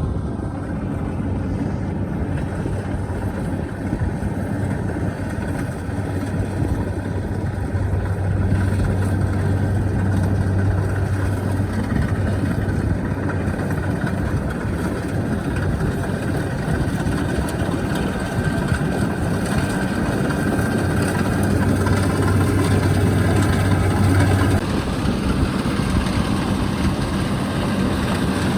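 Kubota DC-73 combine harvester's diesel engine running steadily under load in deep, waterlogged mud. Its low hum grows stronger twice, then eases back near the end.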